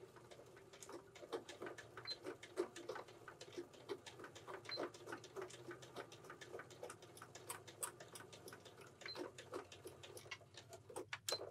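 Domestic electric sewing machine stitching slowly, its needle making a quiet run of light clicks.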